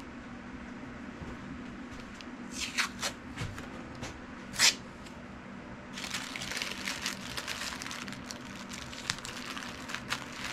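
Wax paper crinkling and rustling as it is folded and wrapped by hand: a few sharp rustles, one louder crackle a little before the middle, then steady crinkling through the second half.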